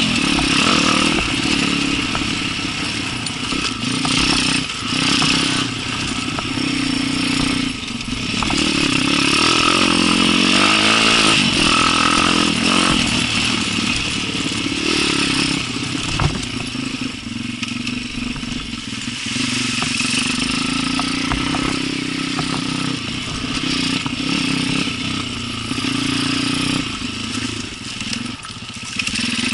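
Small enduro motorcycle engine running under changing throttle, revving up and easing off again and again, with scattered knocks and rattles along the way.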